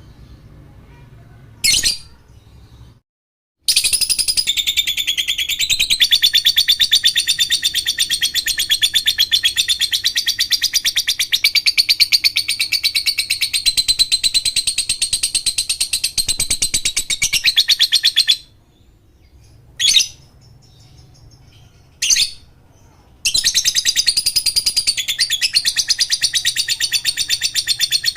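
Lovebird (Agapornis) in its long chattering 'ngekek' song: a very rapid, unbroken high trill held for about fifteen seconds, then a few short chirps, then a second long trill starting about twenty-three seconds in.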